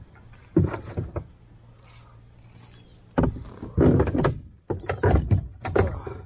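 Irregular knocks, thumps and rubbing of handling in a kayak, in a short group about half a second in and a longer one from about three seconds in.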